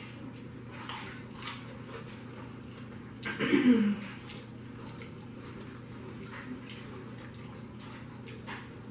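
Close-up eating sounds: wet chewing and smacking on fried chicken and dip-coated tortilla chips, with small clicks. About three and a half seconds in comes a brief louder burst with a short pitched, voice-like sound.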